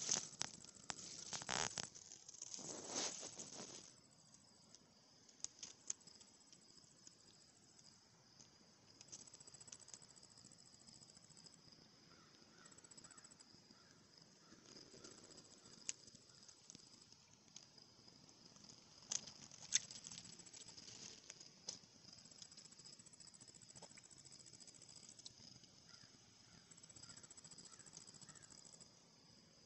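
Raccoon splashing and rustling as it forages in shallow water among reeds, loudest in the first four seconds, then only scattered small splashes and clicks. Steady high-pitched insect chirring runs underneath throughout.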